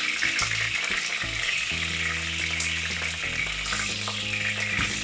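Hot oil sizzling steadily in a pot as browned chicken drumsticks are lifted out, with a few light clicks of tongs.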